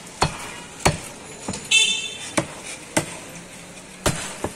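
Heavy meat cleaver chopping beef and bone on a wooden log chopping block: about six hard, irregularly spaced strokes, roughly one every half second to a second. A brief high-pitched toot sounds near the middle.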